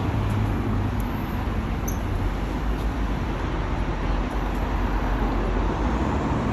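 Scania OmniLink single-deck bus idling at a stop: a steady low engine rumble under general road-traffic noise.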